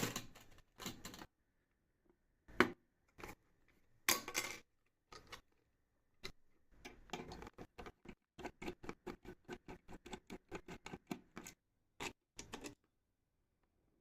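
Clicks, taps and small knocks of computer parts being handled and fitted together during a PC build. In the second half there is a run of quick, even clicks, about four a second.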